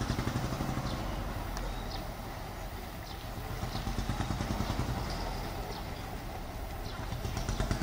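Small river ferry's engine running steadily, with a rapid, even pulse.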